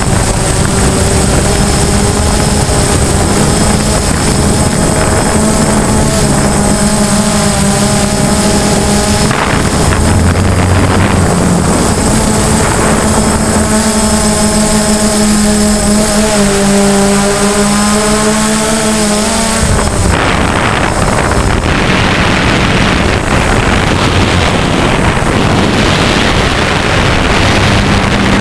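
DJI Phantom quadcopter's propellers and motors buzzing loudly, with a steady high whine. The buzz rises and falls in pitch as the drone manoeuvres, and about two-thirds of the way through it gives way to a rougher rushing noise.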